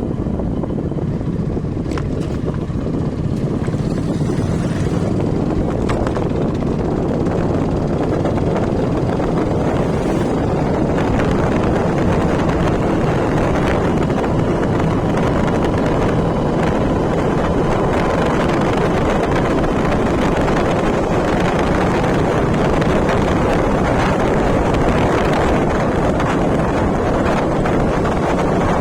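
Steady wind buffeting the microphone over the drone of a moving vehicle.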